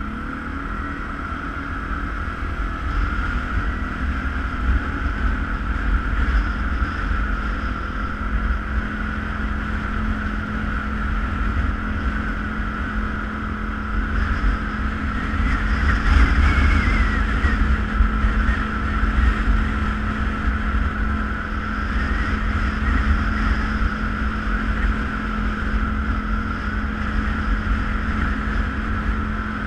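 ATV engine running at a steady pace while under way, with wind buffeting the microphone.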